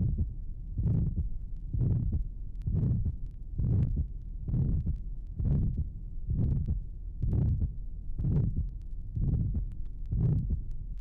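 Heart of a patient with aortic stenosis heard through a stethoscope at the aortic area, beating about once a second. Each beat carries a rough systolic murmur, and the second aortic sound is soft.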